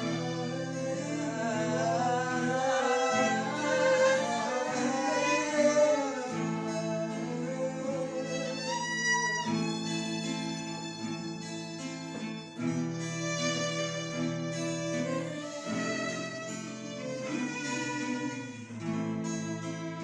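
Slow worship music: acoustic guitar holding sustained chords under a violin melody with vibrato, with a short upward slide on the violin about nine seconds in.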